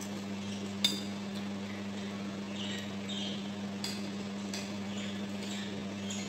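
Metal spoon clinking and scraping against a ceramic bowl while eating, with several light clinks, the sharpest about a second in. A steady low hum runs underneath.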